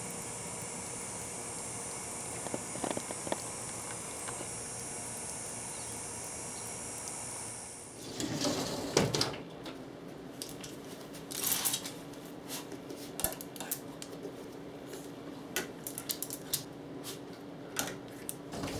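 Light clicks and knocks of household things being handled and put away, a few at a time over a steady high hiss at first. From about eight seconds in, they come as a busier run of clatter over a low hum.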